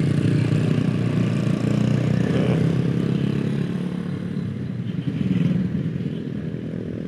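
Small automatic motor scooters of a riding group, Honda Beat types, running at low road speed with their engines humming steadily; the sound eases off over the last second or two.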